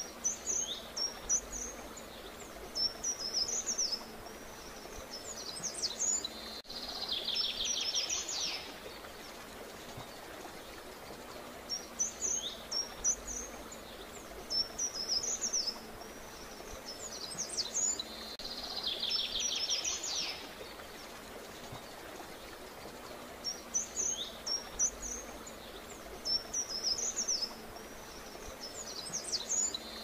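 Songbirds singing in short, high chirping phrases, with a buzzy trill about every eleven seconds, over a steady faint background hiss. The same sequence of calls repeats like a loop.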